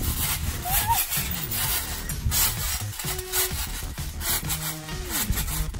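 Trampoline springs and mat creaking and rubbing with each bounce as two people jump, a repeated squeak-and-thump rhythm.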